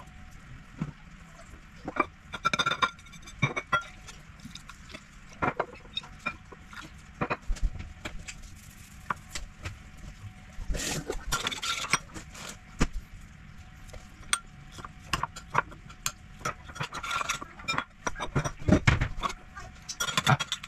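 Kitchen handling: a spoon, ceramic bowls and a plate clinking, tapping and scraping on a benchtop in scattered short strokes, with a few louder knocks near the end.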